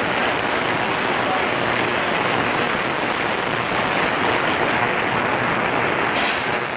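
Benchtop ultrasonic cleaner running with a carburetor in its heated cleaning tank: a steady, even hiss of the ultrasonic cavitation in the solution. A short sharper noise comes near the end.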